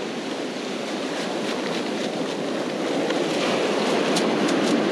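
Surf washing up the beach around the feet, a steady rushing hiss that slowly builds in level as a wave comes in, with a few faint ticks in the second half.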